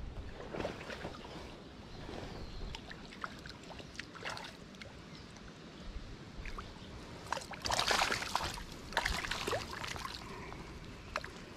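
Water splashing and sloshing, with scattered small splashes and two louder splashes about eight and nine seconds in, over a low rumble of wind and handling noise on the microphone.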